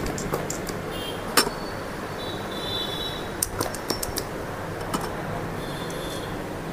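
Plastic vacuum-cupping hand pump clicking as its trigger is worked and it is fitted onto and pulled off the cups on the skin, with two short high squeaks. A steady low hum runs underneath.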